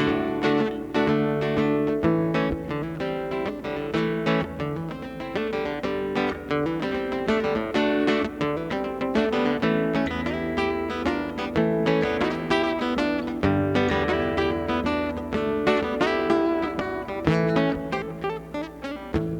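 Acoustic guitar playing an instrumental break in a song: a fast run of single picked notes over lower bass notes.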